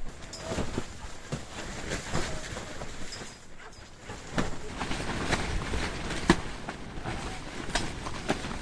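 Strong wind buffeting the microphone, with a low rumble and irregular clicks and knocks, one sharper knock a little past the middle.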